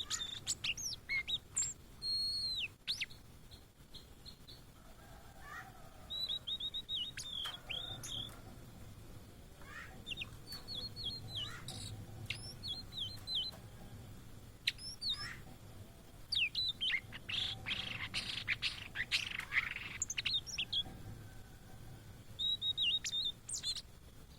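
Blue-and-white flycatcher singing: phrases of quick, high, sliding notes, repeated with short pauses between them, and a busier run of notes about two-thirds of the way in.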